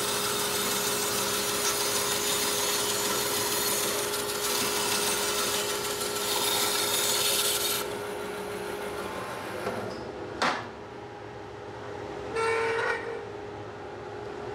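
Bandsaw cutting through a white oak slice, its blade running steadily through the wood for about eight seconds until the cut ends, after which the saw runs on. A sharp knock follows a couple of seconds later, then a brief rasping sound.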